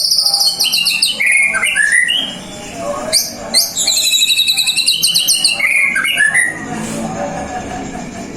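White-rumped shama (murai batu) singing continuously: fast, high trills and rattling phrases with quick downward-sweeping notes, a canary-style filled-in song.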